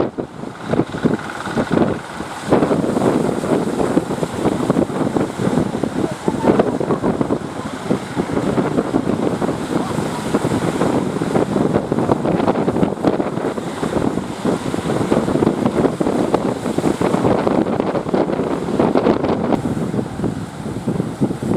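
Gusty wind buffeting the microphone, a constant rough rushing that rises and falls, over a mix of surf and distant boat engines.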